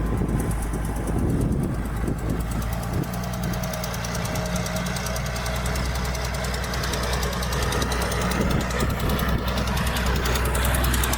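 Heavy diesel engine of earthmoving equipment running steadily under load, a deep even drone that grows a little stronger about a third of the way in.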